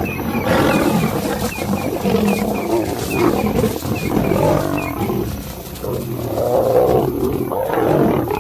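Lions growling and snarling in a fight: two lionesses holding off a male lion. The sound is loud and continuous, swelling and easing several times.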